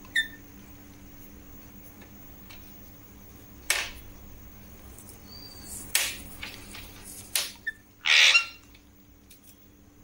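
Alexandrine parakeets pecking at and picking up a thin plastic strip on a wooden desk: a few sharp clicks and taps scattered through, and a short harsh squawk about eight seconds in, the loudest sound.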